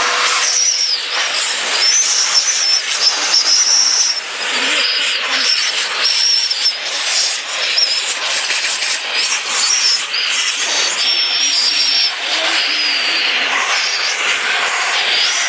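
Construction vacuum cleaner running in blower mode, a steady loud rush of air with a high whine that wavers up and down, used to blow bees off honey frames.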